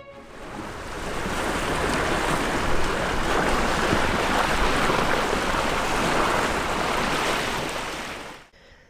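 Sea waves and wind: a steady rushing that fades in over the first second and dies away near the end.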